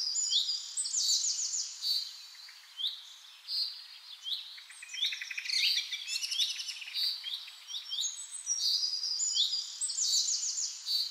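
Songbirds singing: several birds giving overlapping phrases of short, high, curving notes, over a faint steady hiss.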